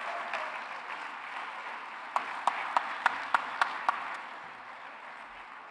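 Audience applauding, fading away toward the end. Near the middle, about seven sharp, loud claps from one person close by stand out in quick even succession.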